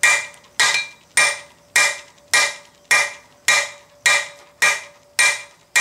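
Ball-peen hammer striking red-hot flat bar stock over the edge of an anvil in steady blows, a little under two a second, each with a short metallic ring that fades before the next. This is drawing out: fullering the bar to reduce its width and gain length.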